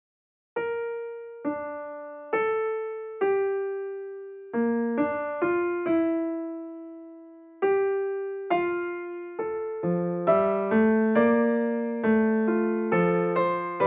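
Slow intro music on piano, starting about half a second in: single struck notes, each ringing and fading before the next, with lower notes joining in for the last few seconds.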